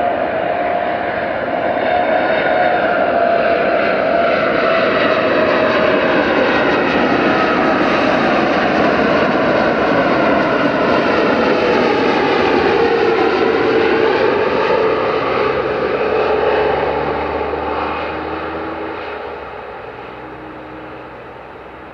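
Boeing 747-8 freighter's four GEnx turbofan engines on final approach, passing close by: a loud jet whine over a rumble, the whine falling in pitch as the aircraft goes past about halfway through. The sound then fades as the jet flies away toward touchdown.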